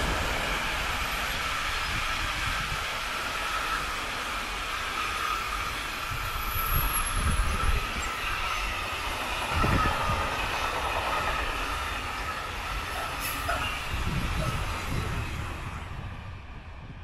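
Freight train wagons rolling past at speed, wheels clattering over rail joints with a faint squeal. The sound fades away near the end as the last wagons recede.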